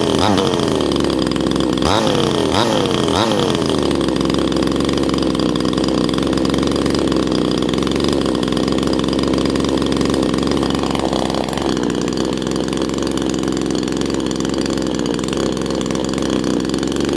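Chinese 62cc two-stroke chainsaw engine with a hollowed-out muffler, blipped up in revs about four times in the first few seconds, each time falling back. It then settles to a steady idle.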